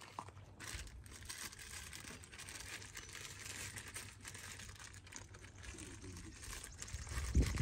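Plastic wrapping crinkling as parts are handled and unwrapped, with a single low thump near the end.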